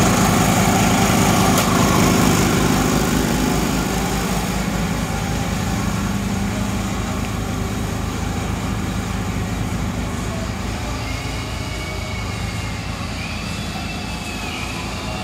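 A small engine running steadily, getting a little quieter after the first few seconds.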